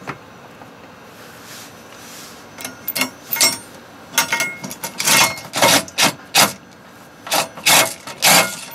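Short, irregular metallic clatters and rattles, starting about two and a half seconds in: a steel socket on an extension knocking and scraping against the steel mounting bracket as a bolt is worked into its slot.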